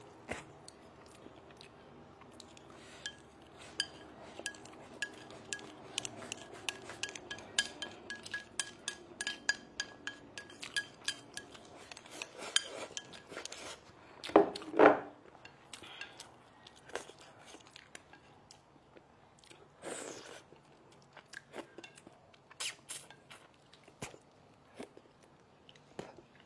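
Tableware clinking against dishes during a meal: many light clicks and taps, with two louder knocks about halfway through.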